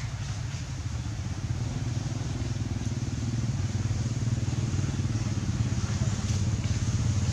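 A low engine drone, growing steadily louder.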